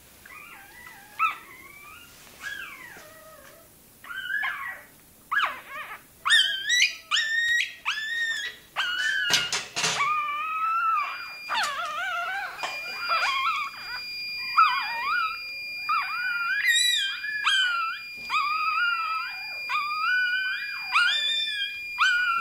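Russkiy Toy puppy squealing and yelping in high-pitched, wavering cries, faint and scattered at first, then loud and almost unbroken from about a quarter of the way in. A steady high electronic tone sounds under the cries in the second half.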